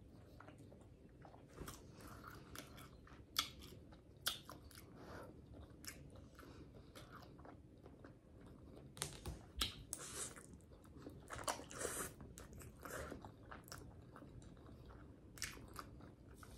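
Close-up eating sounds: a woman chewing and slurping ramen noodles with wet mouth smacks and clicks, busiest in the middle.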